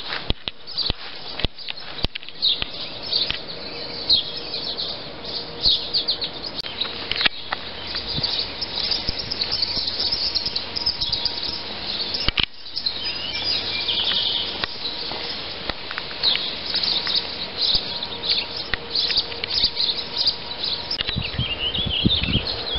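Small songbirds chirping repeatedly, over the frequent rustle and crunch of footsteps through tall grass.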